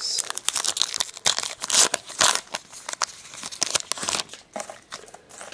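A trading-card pack wrapper being torn open and crumpled by hand: a dense crinkling and crackling that thins out near the end.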